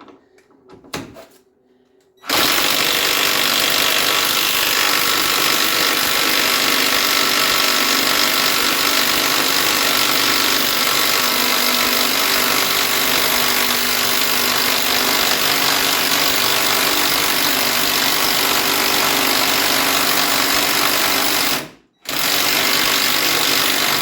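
A few light metal clinks, then an impact wrench hammering hard and steadily for about twenty seconds on a seized bolt. It stops for a moment near the end and starts again; the bolt does not break loose.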